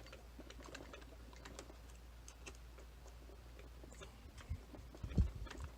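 Faint, irregular small clicks and ticks of metal tools working on a tubular lock being taken apart, with a couple of louder knocks near the end.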